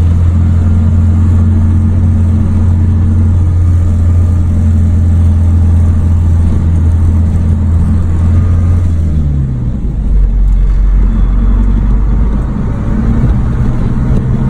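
Car engine and road noise heard from inside the cabin while driving: a steady low drone that drops to a lower pitch about nine seconds in.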